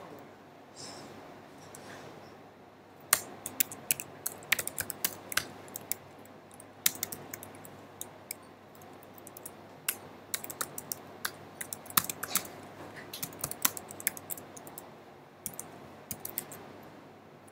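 Computer keyboard typing in quick irregular bursts of keystrokes, with short pauses between runs, starting about three seconds in.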